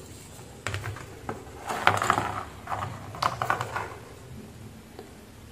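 Irregular light clicks and scraping as multimeter test probe tips tap against a potentiometer's small metal terminals and its wires are handled, busiest between about two and four seconds in.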